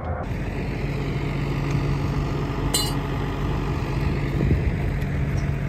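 Tilt-tray tow truck's engine running at a steady idle, with one short metallic clink about three seconds in.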